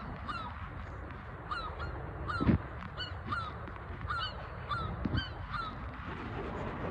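Geese honking repeatedly, short calls one to two a second, over a steady background hiss. Two dull knocks, about two and a half and five seconds in.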